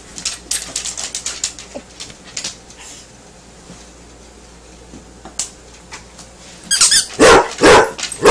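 Basset hound barking: a short pitched whine leads into a quick run of loud, deep barks near the end, after scattered light clicks and rustles earlier on.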